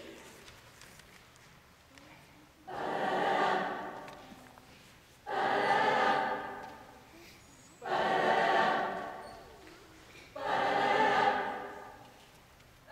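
Mixed choir singing four held chords, each entering together and fading away over about two seconds, with short pauses between them.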